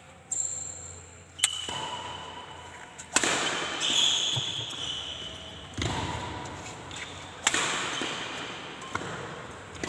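Badminton rackets striking a shuttlecock in a rally, about six sharp hits one to two and a half seconds apart, each echoing in the hall.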